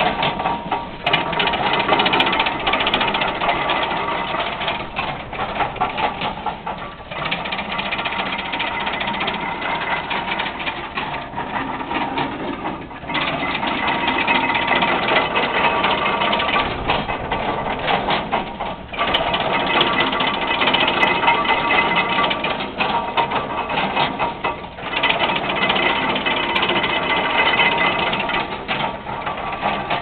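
1924 Ann Arbor Model 40 stationary hay press running, freshly greased, its open gears clattering steadily. The clatter eases briefly about every six seconds.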